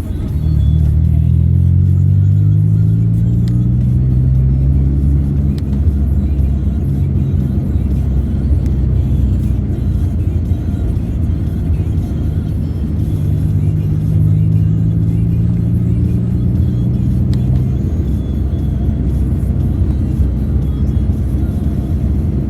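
Car driving, heard from inside, its engine rising slowly in pitch as it speeds up early on and again about two-thirds of the way through, with music playing along.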